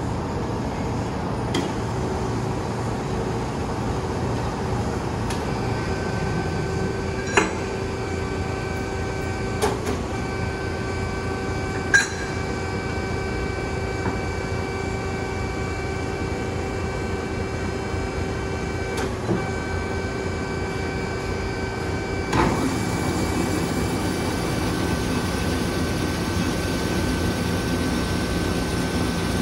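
DoAll C-9V 12-inch horizontal band saw running with a steady motor hum and whine, with several sharp metallic knocks as steel stock is handled on its table. About two-thirds of the way through, a thump is followed by a change in the machine's sound, which grows a little louder.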